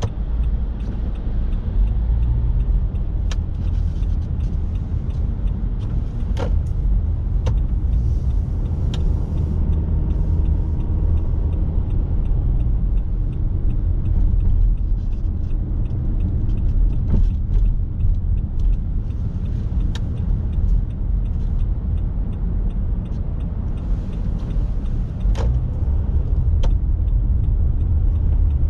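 Car driving on a rain-wet road: a steady low rumble of engine and tyres, with a few sharp clicks scattered throughout.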